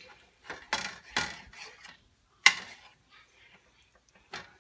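A knife and fork knocking and scraping on a dish while slicing tender crock-pot roast beef: a few short strokes, the sharpest about halfway through.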